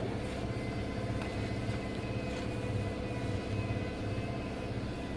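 Steady mechanical hum with a slow, regular throb, a little under two pulses a second.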